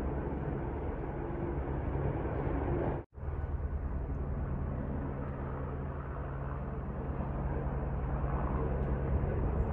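A steady low engine drone with a rushing noise over it. It cuts out abruptly for a moment about three seconds in.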